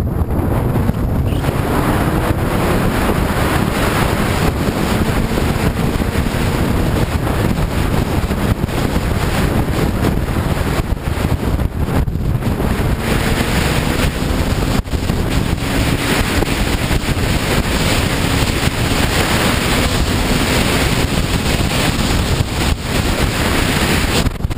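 Loud, steady wind noise on a motorcycle-mounted camera's microphone at freeway speed, with the sport bike's engine faintly underneath, its pitch slowly rising as it gains speed.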